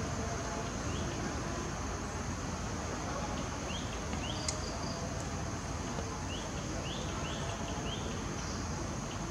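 Steady high insect drone over an outdoor hiss, with short high chirps in small clusters, two about a third of the way in and a run of four later, and a single sharp click about halfway.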